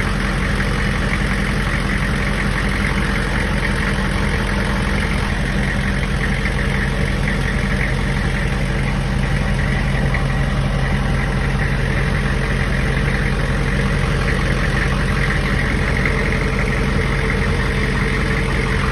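Hummer H1 engine idling with a steady, even drone and a constant low hum.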